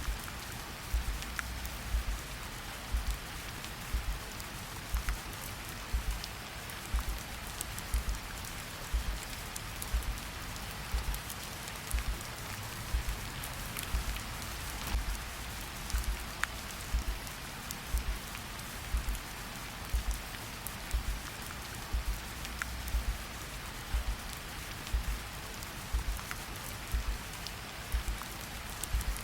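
Steady rain falling, with a slow heartbeat underneath: a low lub-dub double thump about once a second.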